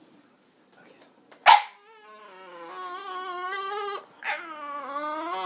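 Boston terrier giving one sharp yip about a second and a half in, then long, wavering whines, broken once near four seconds by a short yelp. It is the excited whining she makes at the sight of other dogs.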